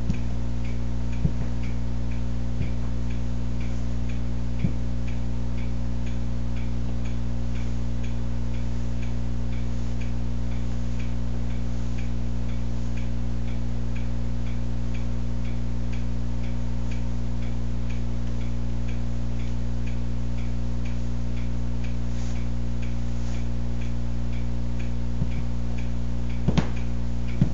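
A steady low electrical hum with a faint regular ticking about twice a second, and a few sharp knocks of cowboy-boot heels on a hardwood floor, several of them near the end as the boots step about.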